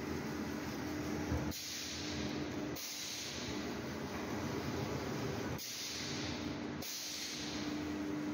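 Sterilization reel-making machinery running: a steady hissing mechanical noise with a constant hum. The sound shifts abruptly several times, about every one to three seconds.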